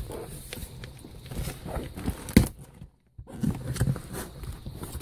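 Cardboard box being handled and fiddled with: scattered light knocks and rustles, with one sharper knock about two and a half seconds in.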